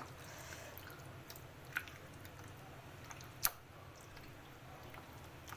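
Chicken pieces being mixed by hand in a yogurt and spice marinade: faint wet squishing, with a couple of short sharp clicks, the loudest about three and a half seconds in.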